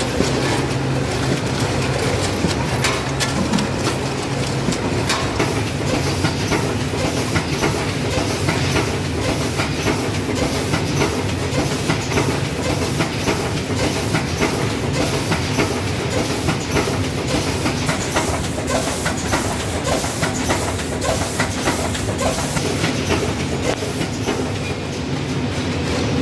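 Automatic snack-packaging line running: a steady machine hum with continual rapid clicking and clatter.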